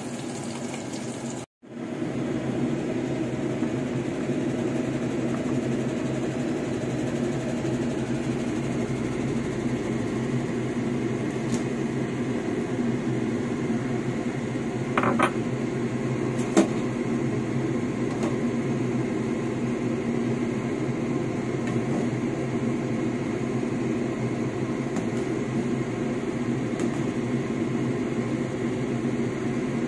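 Pot of lugaw (rice porridge) at a rolling boil on a gas stove: a steady noise with a low hum, broken by a brief dropout about a second and a half in. A few sharp clinks of metal against the pot come about halfway through.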